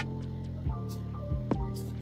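Instrumental background music, with notes struck at an even pace.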